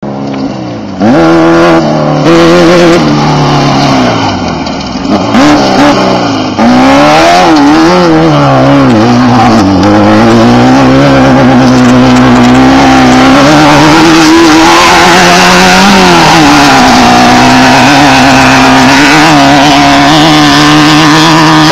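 Off-road desert race car engines running loud, revving up and down repeatedly as the cars pass through a race checkpoint.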